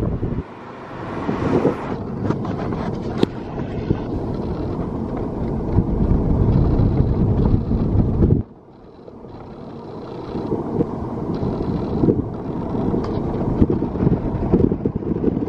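Road and wind noise in a moving car, with wind buffeting the microphone. The noise drops off suddenly about half a second in and again about eight seconds in, then builds back up.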